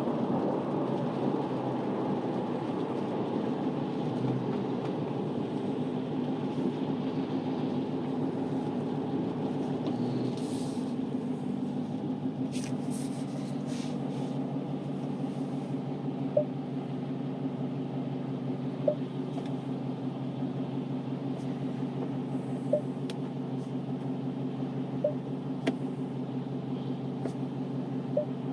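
Dodge Challenger SRT Hellcat Redeye's supercharged 6.2-litre V8 running steadily while the car is driven, with a few short ticks in the second half.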